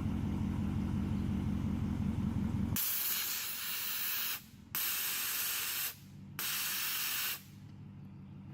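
A car's nitrous purge valve venting three loud hissing blasts in a row, the first the longest, after a couple of seconds of the engine idling. The purge releases nitrous to regulate the pressure in the nitrous system.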